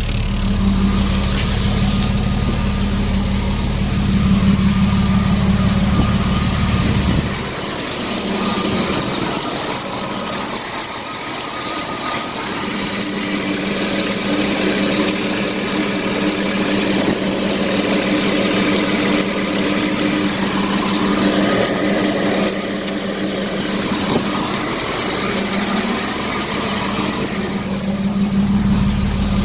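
Jeep Cherokee 4.0-litre straight-six engine idling steadily, now running after a poor contact in the engine computer's connector was found. The deep part of the sound drops away about seven seconds in and comes back near the end.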